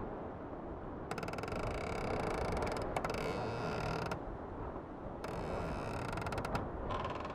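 Wood creaking in three drawn-out, finely ticking spells over a steady low background noise.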